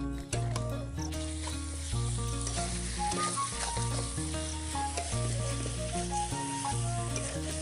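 Chicken pieces frying and sizzling in hot oil in a karahi (wok), stirred with a metal spatula. The sizzle grows denser about two seconds in. Background music with steady low notes runs underneath.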